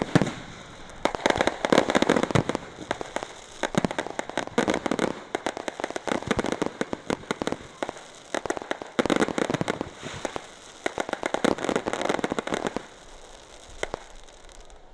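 Fireworks going off: a sharp bang at the start, then several bursts of dense, rapid crackling pops, each lasting a second or two.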